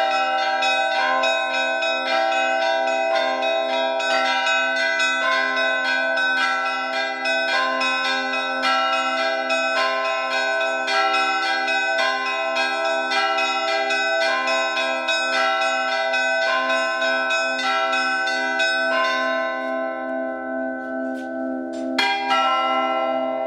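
Russian Orthodox church bells being rung: a quick, steady pattern of strikes on the smaller bells over the ringing of a low bell. About nineteen seconds in the strikes stop and the bells ring on, with one last loud stroke near the end before the sound dies away.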